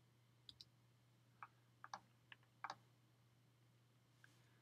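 Faint, scattered clicks of a computer keyboard and mouse, about nine in all and some in quick pairs, over a faint steady hum.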